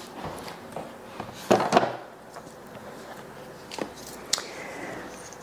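Handling knocks in a quiet room as a bottle is put away and a tub of cleaning paste is picked up: two louder knocks about one and a half seconds in, then two lighter clicks later.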